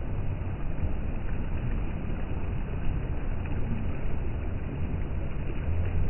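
Small sea waves washing up onto a sandy beach, a steady low rush of surf.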